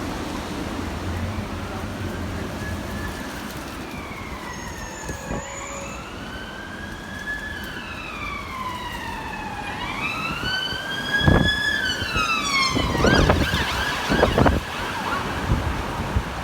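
Emergency vehicle siren wailing in slow rising and falling sweeps, a few seconds each, over steady wind noise. It is loudest about two-thirds through and breaks up near the end, while gusts buffet the microphone.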